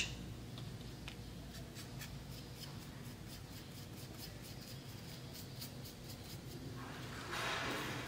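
Faint scratchy strokes and light ticks of a paintbrush dabbing orange paint onto a cut-out egg carton cup, with a brief louder rustle about seven seconds in.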